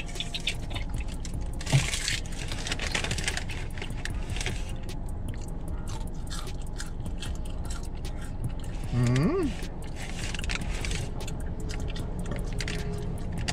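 A person chewing thin fries inside a car, with a crinkle of a paper food bag about two seconds in and a short hum about nine seconds in, over a steady low rumble.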